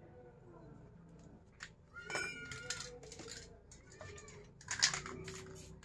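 A cat meowing a couple of times, with light metal clicks of tools in between and a short sharp noise about five seconds in.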